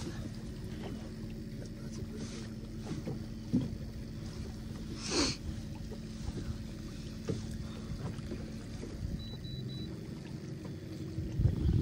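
Open-water ambience around a fishing boat: steady wind and water noise with a constant low hum, and a brief sharp sound about five seconds in.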